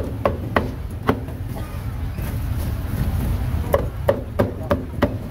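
Meat cleaver chopping through grilled pork ribs on a round wooden chopping block: a quick run of sharp chops in the first second, a pause, then about five more chops near the end. A steady low street rumble runs underneath.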